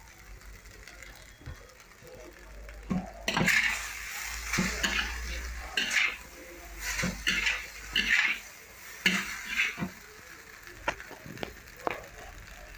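Noodles and vegetables being stir-fried in a wok, with a spatula scraping and tossing them against the pan over a light sizzle. The strokes begin about three seconds in, come every half second or so, and thin to a few clicks near the end.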